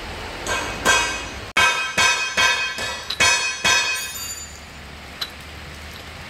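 Metal striking metal: about eight ringing clinks over the first four seconds, roughly two a second, dying away, with one small click a second later.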